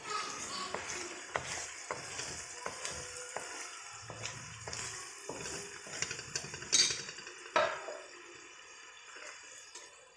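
Onions and spices frying in oil in an aluminium kadai, sizzling, while a wooden spatula stirs and scrapes against the pan with scattered light knocks. Two louder knocks come about seven seconds in, and it goes quieter after that.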